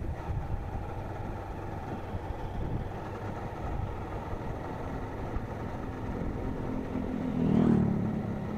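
Honda CG 160 Start motorcycle's single-cylinder four-stroke engine running at a steady road speed, mixed with wind and road noise on the helmet-mounted microphone; the sound swells briefly near the end.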